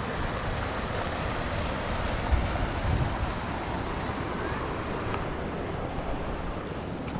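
Hann River water rushing over low rock rapids, a steady wash, with wind buffeting the microphone in uneven low gusts.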